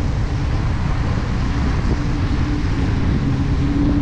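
Dodge Challenger R/T's 5.7-litre HEMI V8 running steadily at moderate revs while driving on a wet road, with tyre and wind noise.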